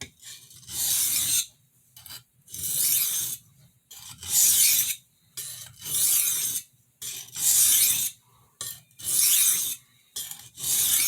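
A 6-inch kitchen utility knife's steel blade stroked by hand across a fine India oilstone to refine the edge: about seven even strokes, each under a second, roughly one every one and a half seconds.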